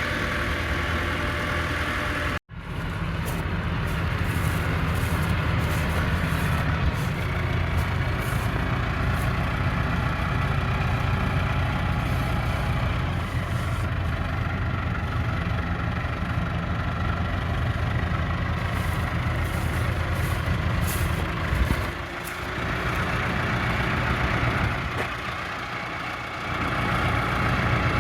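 A vehicle engine running steadily, with an even low rumble, while pulling the old combine out of the grass into the open. The sound cuts out for an instant about two and a half seconds in.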